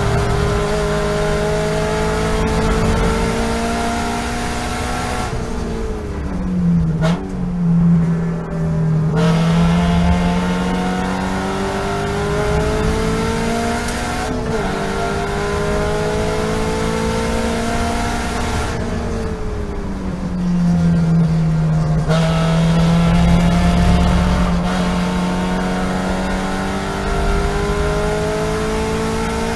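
Toyota GT86 race car's 2.0-litre flat-four engine heard from inside the cockpit at race pace, its revs climbing steadily under throttle. The revs fall away twice, about five seconds in and again near twenty seconds, as the car slows for corners, then climb again as it accelerates out.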